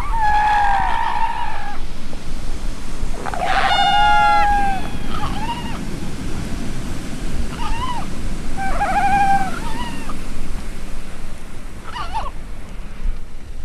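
Wild animal calls, several separate pitched, wavering cries a second or two apart, over a steady low rush of surf.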